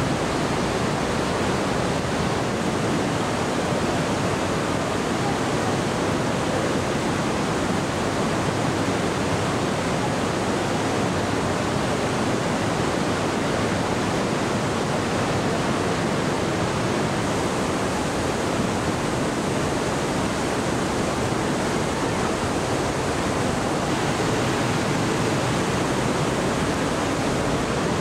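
Trümmelbach Falls: glacier meltwater rushing down a narrow rock gorge, a steady, unbroken noise of falling water.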